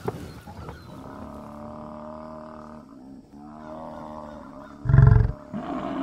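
African buffalo calling: two low, drawn-out calls, the second dipping and then rising in pitch, then a short, loud, deep grunt about five seconds in.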